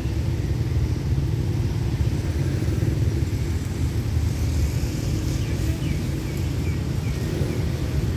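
Steady low rumble of road vehicles idling at a closed railway level crossing, with a few faint high chirps about five to seven seconds in.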